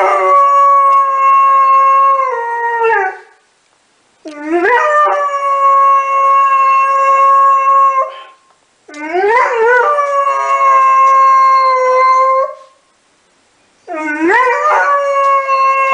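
Doberman Pinscher howling: four long howls, each rising at the start, held at one steady pitch for three to four seconds, then falling away, with short pauses between them. The first howl is already under way at the start.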